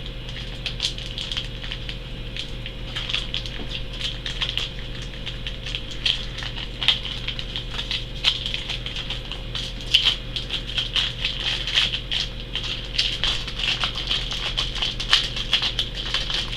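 Japanese Pokémon Jungle booster pack's plastic wrapper being worked open by hand, with irregular crinkling and crackling as the sticking plastic is pulled apart. A faint steady hum lies underneath.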